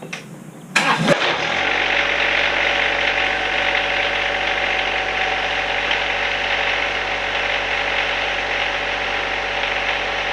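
John Deere 1025R sub-compact tractor's three-cylinder diesel engine starting: a brief crank a little under a second in, catching almost at once, then running steadily.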